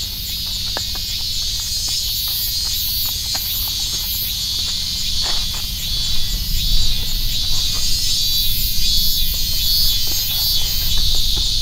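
Dense, steady, high-pitched chorus of insects, with a higher layer that pulses. A low rumble under it grows louder about halfway through.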